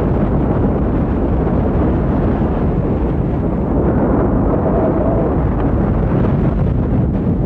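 Loud, steady low rumble of wind and storm noise, without breaks.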